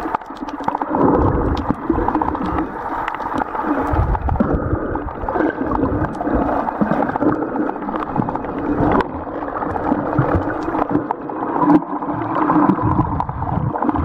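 Muffled underwater sloshing and gurgling of sea water moving around a submerged camera, with scattered faint clicks.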